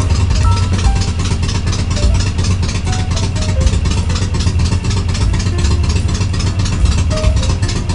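Harley-Davidson Sportster 883R's air-cooled V-twin engine idling steadily with an even, loping pulse of about five beats a second, running after its rocker box gaskets were replaced.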